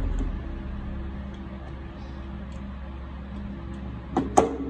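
Hand tools and a bolted battery pack handled on a wooden table: quiet handling over a low steady hum, then two sharp metallic clacks near the end as the long-nose pliers are put down.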